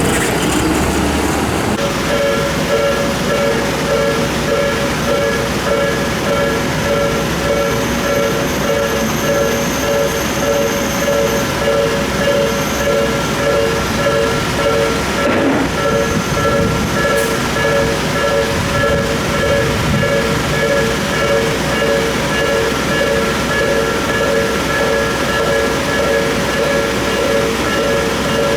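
Japanese railway level-crossing warning bell starts about two seconds in and keeps ringing in a steady, repeating two-tone 'kan-kan' pattern, signalling that a train is approaching the crossing.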